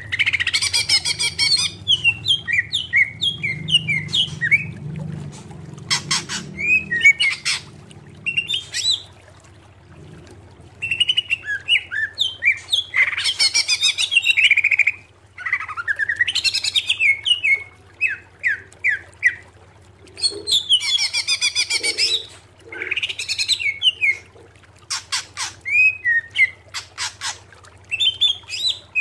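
Greater green leafbird (cucak ijo) singing: phrases of quick, varied whistled notes broken by fast rattling trills, each phrase a few seconds long with short pauses between.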